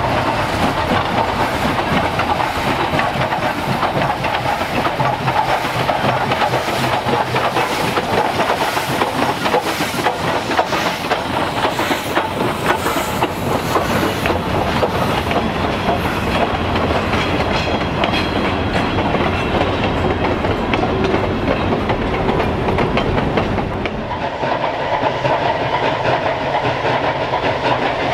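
2-6-6-2 Mallet steam locomotive working past close by with a steady run of exhaust beats, followed by hopper cars rolling past with wheels clacking over the rail joints. Near the end the sound changes to the train working at a distance.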